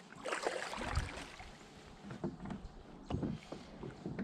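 Kayak paddle handled on the water: a few splashes and dull knocks of the paddle shaft against the kayak's hull as it is laid across the boat.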